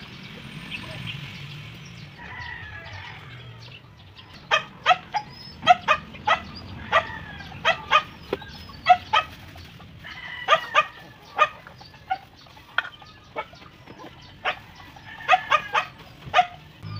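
An animal calling in short, sharp, repeated bursts, starting about four and a half seconds in and going on in uneven clusters of one or two a second.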